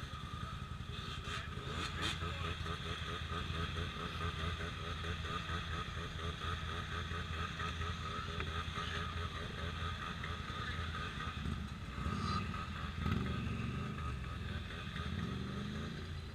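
ATV engine running steadily, with its pitch shifting a little near the end.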